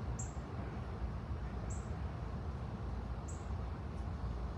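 Steady low background noise with no distinct sound event.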